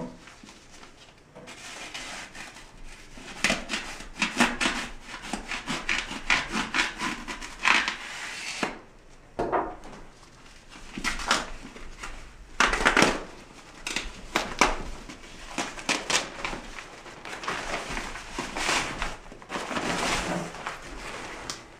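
Thin protective foam-and-plastic covering rustling and crinkling in irregular bursts as it is rubbed and peeled off a new iMac's screen.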